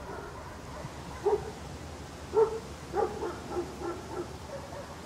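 A dog barking: one bark about a second in, a louder one a second later, then a quick run of smaller barks and yips that fades out.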